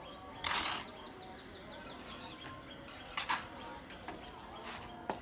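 A bird's rapid series of short, high, falling chirps in the background, broken by two brief harsh noisy bursts, about half a second in and again about three seconds in.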